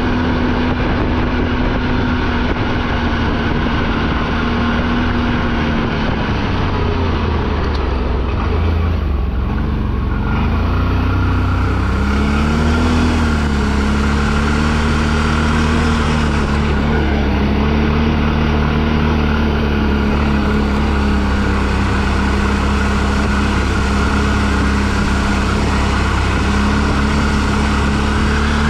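ATV engine running steadily while riding. Its engine speed dips and wavers from about eight to thirteen seconds in, then holds steady again.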